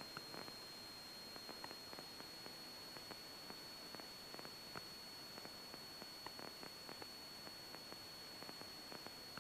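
Faint steady hiss with a thin high tone and scattered light clicks and crackles: the open line of a cockpit radio and intercom audio feed between transmissions, with the engine noise not coming through.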